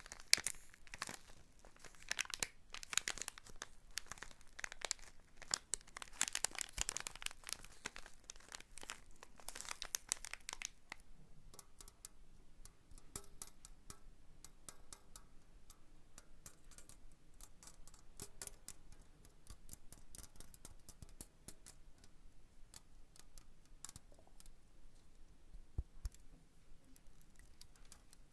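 Close crinkling and rustling of a crinkly material being handled, dense for about the first eleven seconds, then giving way to quieter, scattered light taps and clicks.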